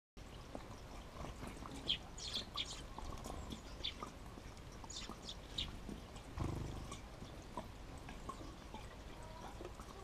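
Short, high chirps of small birds, scattered through the first six seconds, over a faint steady outdoor background. A dull low thump about six and a half seconds in.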